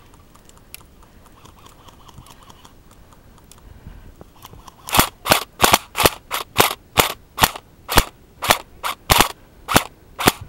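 Airsoft gun firing a rapid string of semi-automatic shots: about fifteen sharp cracks at roughly three a second, starting about halfway through.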